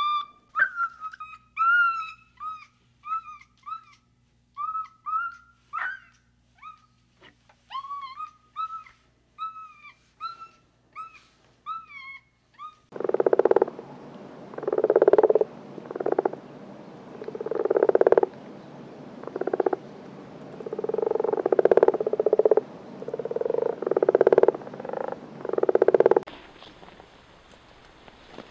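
A string of short, high, bending chirp calls from monkeys, then from about halfway through a frog croaking loudly, low rasping croaks about once a second for some thirteen seconds.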